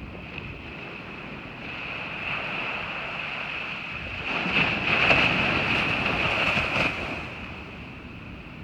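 Surf on a beach: a wave builds, breaks and washes in over a few seconds, then fades, with wind noise on the microphone. A steady high whine runs underneath.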